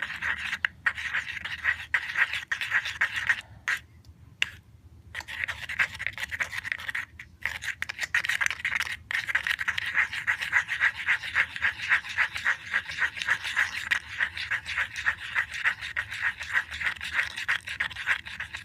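A paintbrush stirring toothpaste into thick shampoo-and-salt slime in a small pot: fast, continuous scraping strokes that stop briefly twice in the first half.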